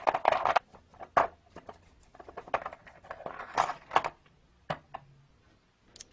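A bristle brush scrubbing small steel screws and scale parts in a plastic tray, a short fast scratching, followed by scattered light clicks and scrapes as the small metal parts are moved about in the tray.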